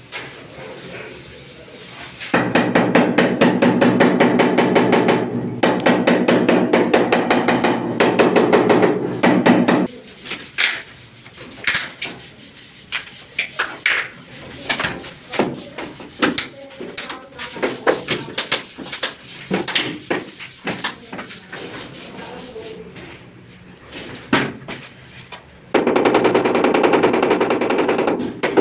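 A handheld tile vibrator buzzing against a large wall tile to bed it in the adhesive, for about seven seconds and again briefly near the end. In between come a run of sharp taps and clicks from tiles and plastic leveling clips being handled.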